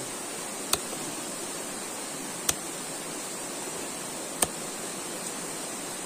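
Steady rushing water, with three sharp knocks of a large knife blade against bamboo, about two seconds apart.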